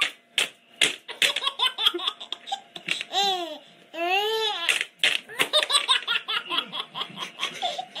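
Baby laughing, with two long high squeals that rise and fall about three and four seconds in, then quick, choppy giggles.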